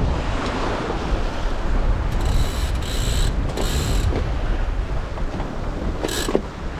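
The sailing yacht's DIY wind-vane self-steering gear squeaks three times as its mechanism works: two longer squeals about two to four seconds in and a short one near the end. Steady wind and sea noise runs underneath.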